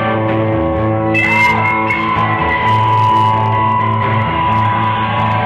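Rock band playing: guitar with long held notes over a pulsing bass line. About a second in, a high note slides up and is held.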